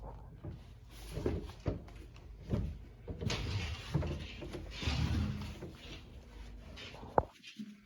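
A series of knocks and bumps with scraping, rustling stretches in the middle and one sharp knock near the end, the sound of things being handled or moved about.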